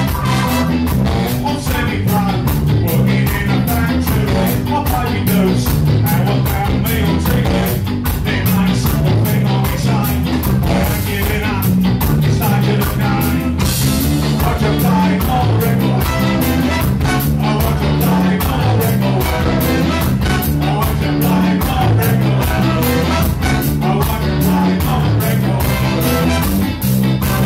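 Live ska band playing at full volume, with tenor saxophone, trumpet and trombone over drums and electric guitar on a steady beat, and a man singing into the microphone.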